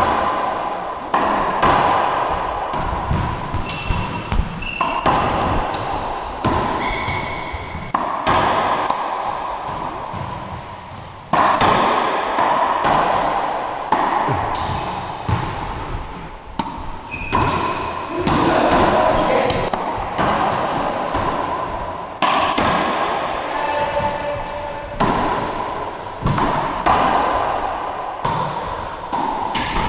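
Racquetball rally: the hollow rubber ball cracking off racquets and the court walls, hit after hit at an irregular pace, each impact echoing and dying away in the enclosed court. Occasional short high squeaks fall between the hits.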